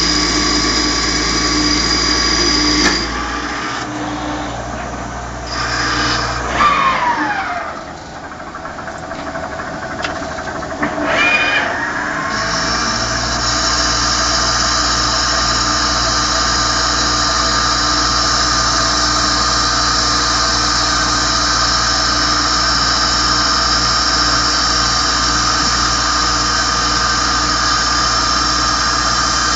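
Okuma CNC lathe running steadily, then its spindle winds down with a falling whine about six seconds in, runs quieter for a few seconds, and spins back up with a rising whine before settling into a steady run again.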